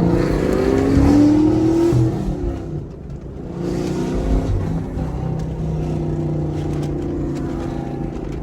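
Chevrolet Camaro SS 1LE's naturally aspirated V8 pulling up through the revs under throttle, easing off briefly about three seconds in as for a manual gear change, then pulling again and settling into a steady cruise.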